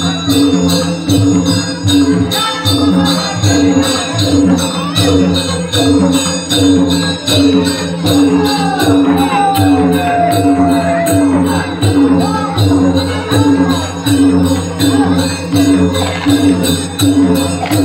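Folk devotional drumming: barrel hand drums beaten in a fast, even rhythm with a constant jingling of metal percussion over it.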